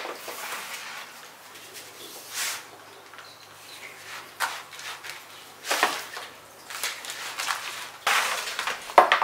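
Plastic trowel scooping and stirring loose potting soil in a plastic tray: irregular gritty scrapes and rustles, with a few sharper knocks of the scoop against the tray.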